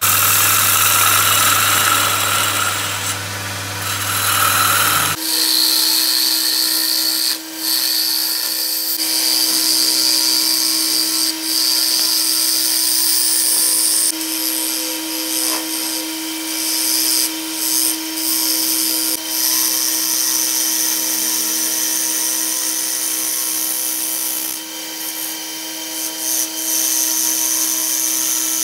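Wood lathe running while a gouge cuts a spinning wooden blank: a steady motor hum under the hiss and rasp of the tool shaving the wood. The sound changes abruptly about five seconds in, then stays steady.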